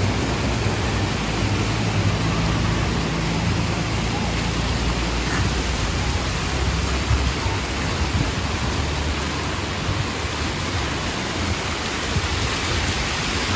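Heavy rain pouring onto a flooded street, a steady hiss. Through the first half a bus engine runs close by with a low hum, fading out about halfway.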